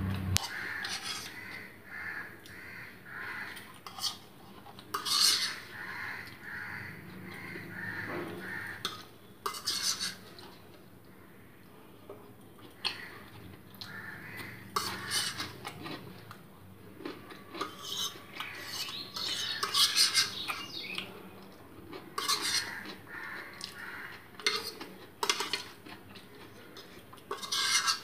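A metal fork scraping and clinking against a plastic plate as the last noodles are scooped up, many short clicks and scrapes at irregular intervals, with chewing between them.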